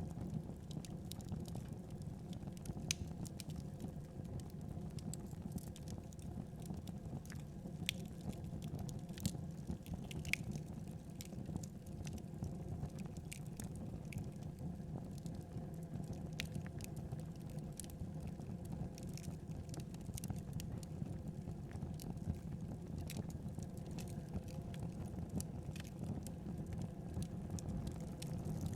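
Wood fire burning in a fireplace: a steady low rush of flame with irregular sharp crackles and pops from the burning logs.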